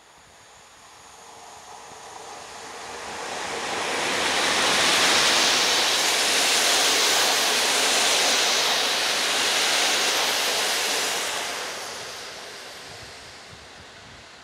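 EP07 electric locomotive and its train of passenger coaches passing: a steady rush of rolling noise that swells as the train approaches, holds loudest for several seconds as the coaches go by, then fades away as it recedes.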